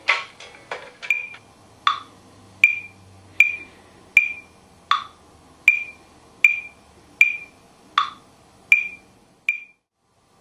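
Metronome app on an iPhone ticking through a passive horn amplifier: sharp clicks at a steady beat of about 80 a minute, every fourth click accented. The ticking stops shortly before the end.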